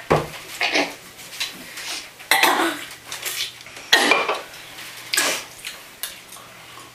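Spoons clinking and scraping against ceramic bowls as tableware is handled, in a series of separate sharp clatters, roughly one a second.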